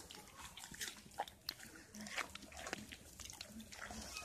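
Fallow deer eating pear from a hand, crunching and chewing with many short wet clicks, and a regular chewing beat about four times a second from about halfway.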